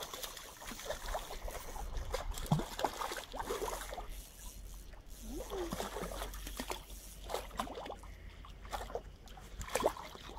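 Hooked trout thrashing at the water's surface, making a run of short, irregular splashes as it is drawn in toward the bank.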